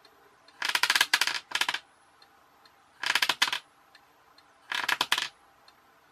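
A small vibrating motor, switched by a reed relay from a light-sensor circuit, runs in three short bursts and rattles rapidly against the bench mat each time it is switched on.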